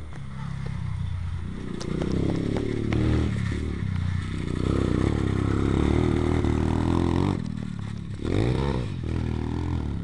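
Orion X-125 pit bike engine revving up and down as the bike rides past, its pitch rising and falling. About seven seconds in the engine note drops away briefly, then climbs sharply again as he gets back on the throttle.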